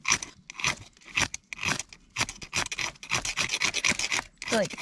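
A ferro rod scraped hard with a steel striker, a run of short rasping strokes to throw sparks onto the tinder, about two a second at first and quicker after the middle.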